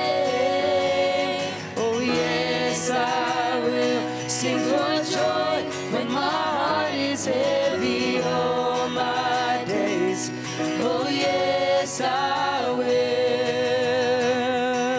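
Live contemporary worship song: singers holding long, wavering sung notes over strummed acoustic guitar and band backing.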